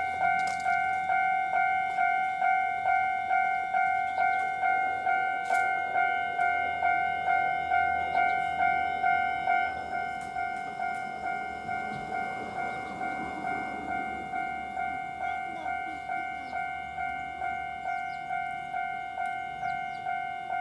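Japanese railway level-crossing warning bell ringing, an electronic ding repeating about twice a second. It gets quieter about halfway through.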